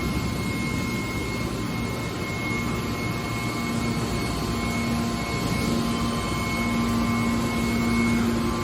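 Hydraulic scrap-metal baler running: a steady machine drone with a low hum that grows stronger about halfway through and a faint high whine.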